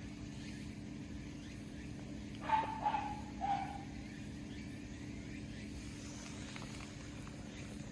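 Three short animal calls in quick succession about two and a half seconds in, over a steady low hum.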